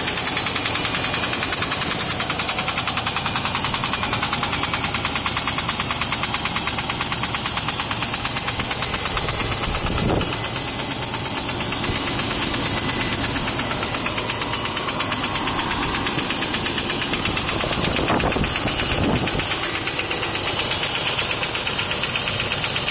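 Range Rover P38 engine idling after a cold start, with a rapid, steady ticking coming from the engine.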